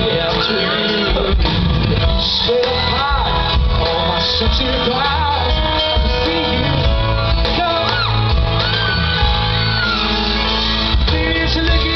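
Live pop-rock band playing through a PA: electric guitar, bass and keyboard under a sung lead vocal.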